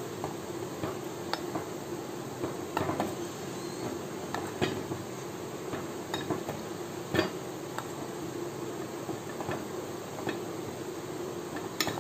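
A spoon clinking and scraping against a bowl at irregular intervals while stirring chocolate as it melts.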